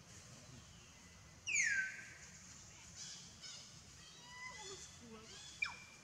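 Animal calls: one loud call falling in pitch about a second and a half in, then a run of shorter, high chirps and falling calls over the second half, with a sharp click near the end.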